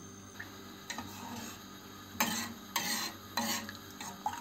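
Metal spoon stirring lemon slices and salt into the water inside a stainless steel teakettle, scraping against the kettle in about five short strokes. The salt and lemon are being mixed in to dissolve the limescale.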